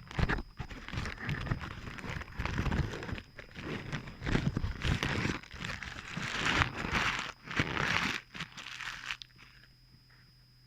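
Crinkling and rustling of fast-food paper and plastic packaging being handled, full of sharp crackles, stopping about nine seconds in.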